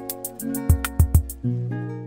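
Background music: a guitar track with a steady drum beat. The drums drop out about three-quarters of the way through, leaving a held chord.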